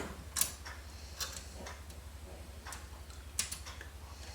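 Faint, scattered clicks of a small metal screw being fiddled into a PC case by hand, a handful of light ticks spaced irregularly about a second apart, over a steady low hum.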